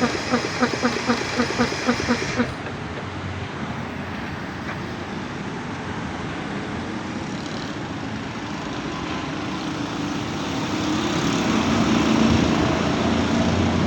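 Compressor running with a rhythmic pulsing, about three to four strokes a second, which cuts off abruptly about two and a half seconds in. A steady rushing machine noise remains and grows louder near the end.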